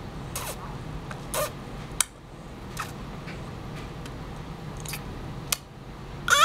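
A baby making wet lip-smacking and sucking noises while eating applesauce: a string of short sharp smacks, roughly one a second. A short vocal sound with falling pitch comes in right at the end.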